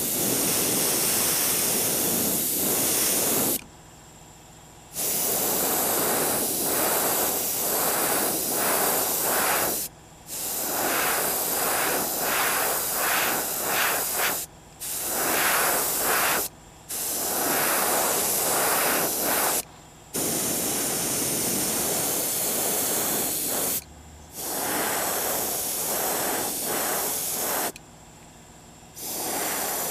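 Airbrush spraying paint, a steady hiss in bursts of a few seconds with about seven short breaks as the trigger is let off, some bursts fluttering quickly.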